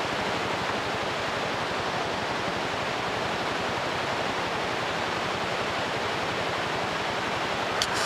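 Steady rush of a rocky mountain river running over rapids.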